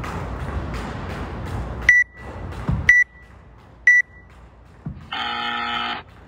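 Workout timer counting down: three short high beeps a second apart, then a long buzz of about a second marking the end of the 10-minute AMRAP interval. Background music with a steady beat plays for the first two seconds and then stops, and there is a thud between the first two beeps.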